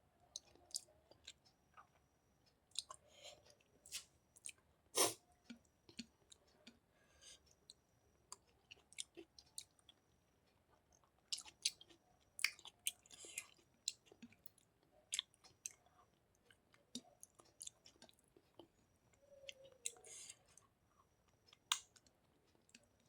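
Close-miked chewing and eating mouth sounds: irregular wet clicks and smacks as food is chewed, with one sharper click about five seconds in.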